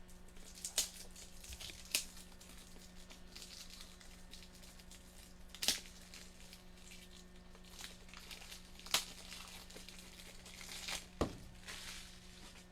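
Plastic packaging crinkling and tearing as a pack of rigid plastic card top loaders is opened and handled, with several sharp clicks and taps of the holders.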